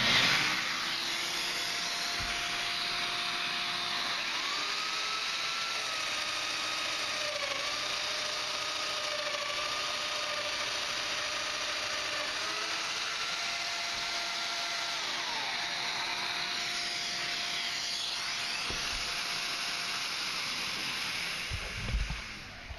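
Festool Domino XL joiner cutting mortises with a shop vac running on it for dust extraction: a steady motor whine over a rush of air. The whine's pitch steps up and down several times as the cutter plunges and takes load. Both stop near the end.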